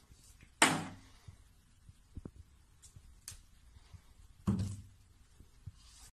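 Plastic toiletry bottles knocked off a bathroom shelf by a cat, each landing with a sharp clatter: one about half a second in and another about four and a half seconds in, with a few light taps between as the cat paws at the bottles.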